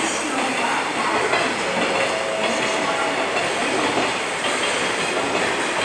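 JR Central 371 series electric train pulling slowly into the platform, with a steady running noise of wheels on the rails. A thin faint tone is heard for about a second, around two seconds in.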